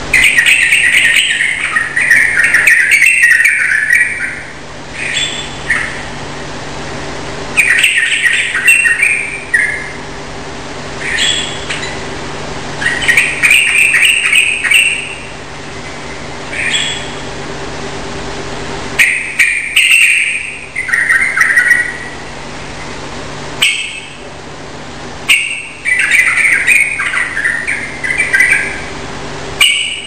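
Yellow-vented bulbul (trucukan) singing loud, insistent phrases of a second or two, repeated every few seconds with short single notes between. The song plays over a steady background hiss.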